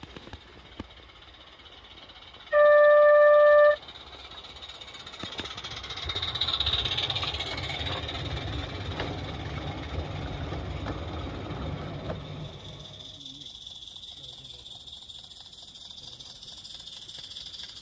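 A model locomotive's whistle sounds once, a loud single-pitched tone about a second long. Then a 16mm-scale garden-railway train rumbles past, its wheels running on the rails for about seven seconds before the sound drops away.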